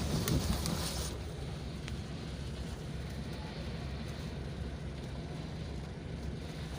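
Wind buffeting the microphone: a steady low rumble with a hiss above it, and a few sharp clicks in the first second.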